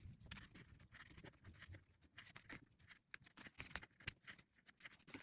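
Faint rustling and irregular soft ticks of macrame cord being handled by hand and pulled through as clove hitches are knotted.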